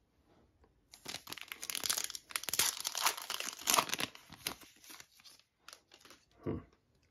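A foil trading-card pack being torn open and its wrapper crinkled in the hands: dense crackling for about three and a half seconds, then a few light rustles and a soft knock near the end.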